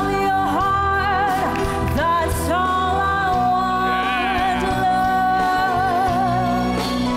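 A woman singing long, held notes with vibrato into a headset microphone, over instrumental backing music.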